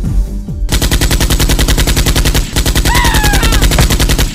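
Automatic gunfire sound effect dubbed over a Nerf blaster: a rapid, steady burst of shots, about a dozen a second, starting under a second in and cutting off abruptly at the end.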